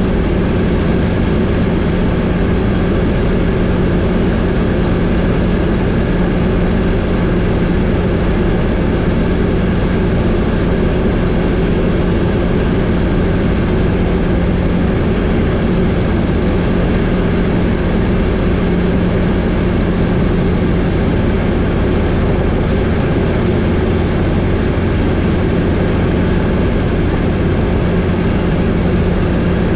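Helicopter in flight: a steady drone of engine and rotor, unchanging in pitch and level, with a constant low hum under a wide rushing noise.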